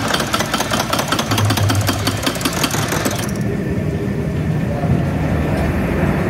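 Small roller coaster cars rattling along their track in rapid, dense clicks, cut off suddenly about three seconds in by a locomotive's engine running steadily with a low hum.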